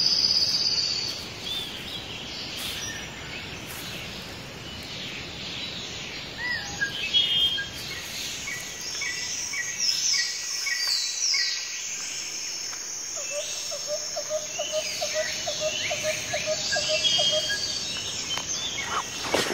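Forest ambience: many birds chirping and calling over a steady high drone of insects. In the middle, a run of short lower notes repeats about three times a second for several seconds.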